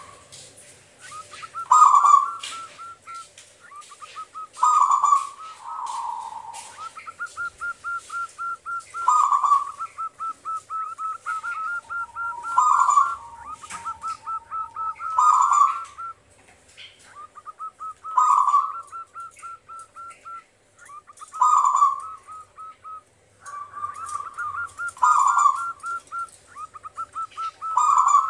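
Zebra dove (perkutut) cooing: quick runs of short staccato coos, broken every few seconds by a louder, fuller note. The bird is in full song.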